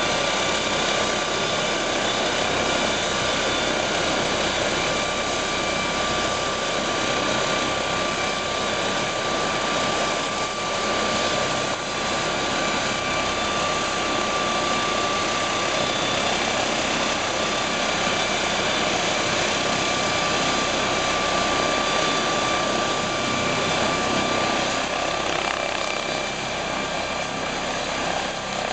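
MD902 Explorer NOTAR helicopter running on the ground before lift-off: its twin turbine engines give a steady whine over the continuous rush of the turning main rotor.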